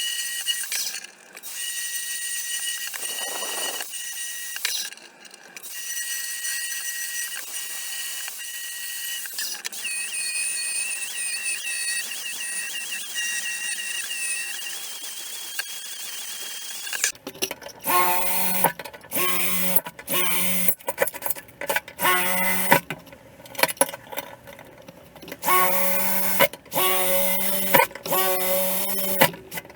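An electric workshop power tool running with a steady high whine, then, about two-thirds of the way in, a lower-pitched motor started and stopped repeatedly in short bursts of about a second each.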